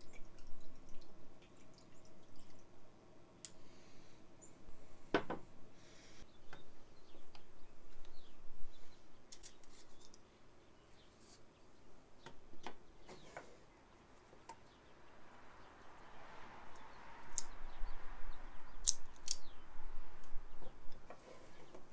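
Bourbon glugging from a bottle into a glass over ice, followed by small clicks and knocks of a wooden box, a metal cigar tube and a cigar being handled. Near the end comes a stretch of rustling and two sharp clicks close together from a cigar cutter.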